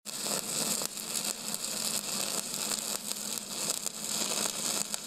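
Welding arc crackling and hissing steadily, with a faint low hum underneath.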